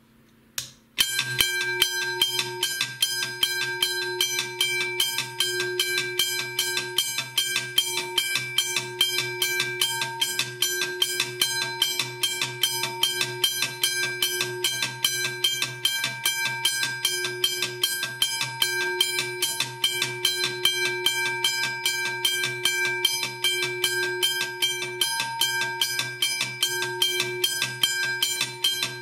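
Australian-made McKenzie & Holland teardrop railroad crossing bell ringing, its hammer striking a thick-metal gong in a rapid, steady repetition of strokes that keep ringing into one another. A click comes just before the bell starts about a second in.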